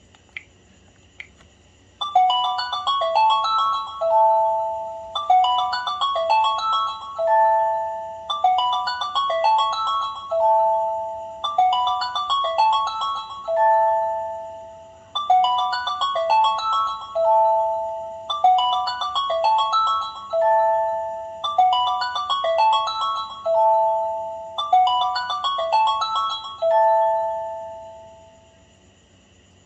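LG Classic Flip flip phone's speaker playing a ringtone: a short chiming melody of quick notes ending on a held lower note, repeated over and over about every three seconds. Two short clicks come just before it starts.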